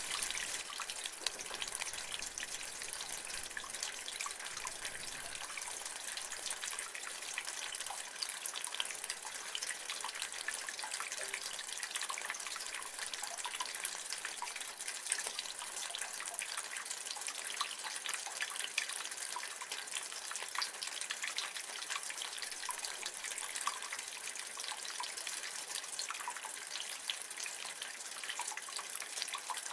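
Rain water running and dripping from a gutter: a steady splashing hiss scattered with many small drips.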